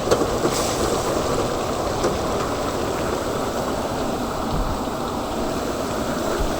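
A wok of chicken cooking over a strong gas flame: a steady sizzling and bubbling, with a few light clicks near the start and about two seconds in.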